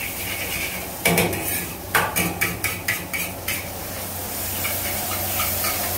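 A metal wok spatula knocking and scraping against a wok as noodles are stir-fried over a gas flame, with a steady frying hiss underneath. There is a knock about a second in, another at two seconds, then a quick run of clinks for about a second and a half.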